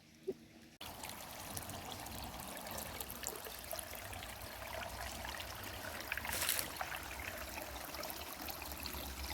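Shallow creek water trickling and flowing steadily, starting abruptly about a second in, with a brief louder swell a little past the middle.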